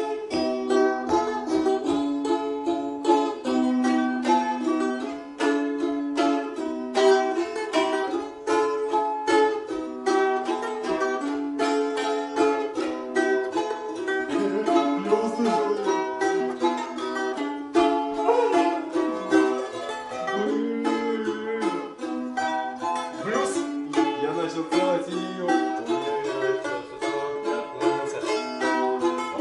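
Several balalaikas played together: fast, steady strumming and plucking with several notes sounding at once, in a continuous improvised piece.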